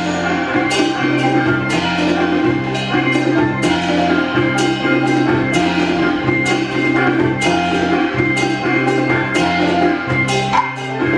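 Taiwanese opera accompaniment music: a bass line of held notes stepping from pitch to pitch under regular, sharp percussion strikes.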